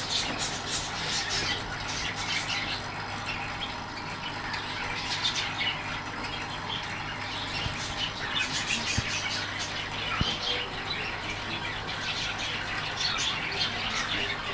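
Steady low hum of an aquarium's internal power filter, with birds chirping on and off in the background.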